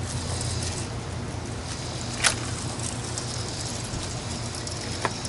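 Steady low hum of a boat motor running slowly while dragging baits, under wind and water hiss, with a sharp click a little over two seconds in and a smaller one near the end.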